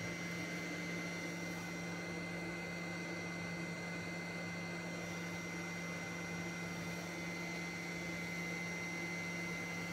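Steady hum and even hiss of running electrical equipment, with a faint high-pitched whine, unchanging throughout.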